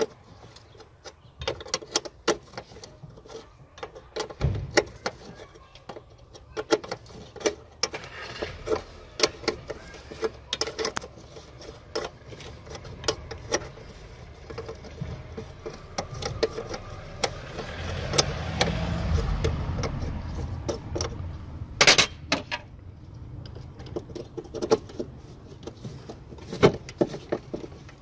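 Hands handling wiring and plastic connectors around a car's wiper motor: a run of small irregular clicks, taps and rattles, with one sharp click about three quarters of the way in. A low rumble swells and fades a little past the middle.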